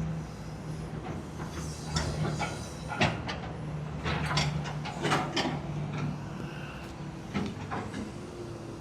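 Caterpillar 314ECR excavator's CAT C4.4 diesel engine running steadily while the machine works, with a series of sharp metal clanks and knocks between about two and seven and a half seconds in, and a steady whine rising in near the end.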